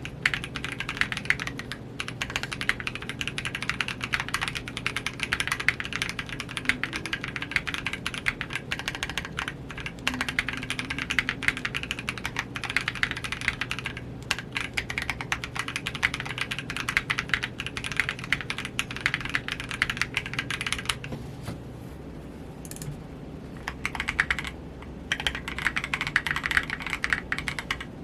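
Fast, continuous typing on a 60% mechanical keyboard: aluminium case, polycarbonate plate, lubed Gazzew Boba U4T tactile switches and Cherry-profile PBT keycaps. About 21 seconds in the typing stops briefly, then resumes on KAT-profile PBT keycaps.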